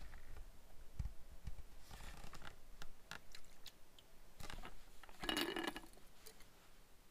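Light clicks and knocks of hands handling an Echo CS-590 chainsaw's plastic housing, then about five seconds in a brief scraping squeak as a filler cap is twisted open.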